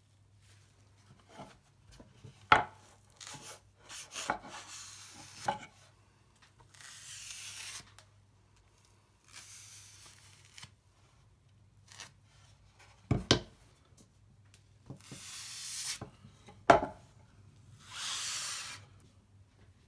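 A sponge wiping oak stain onto a plywood drawer base and oak drawer sides in long rasping strokes of about a second each, about four of them, with a few sharp wooden knocks as the drawer is handled and set down.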